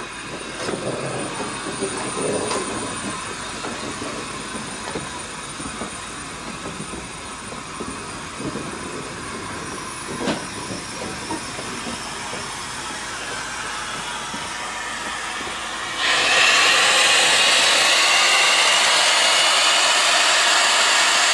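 South African Railways NGG16 Beyer-Garratt steam locomotive No. 87 moving slowly past, wheels rumbling and clicking on the rails under a light steam hiss. About sixteen seconds in, a much louder, steady hiss of escaping steam starts suddenly and holds.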